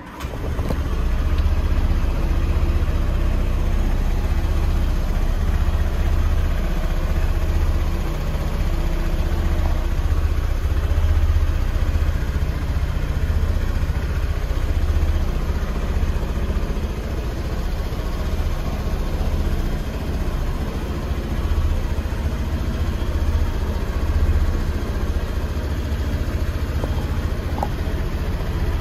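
Honda PCX125 scooter's single-cylinder four-stroke engine starting suddenly, then idling steadily.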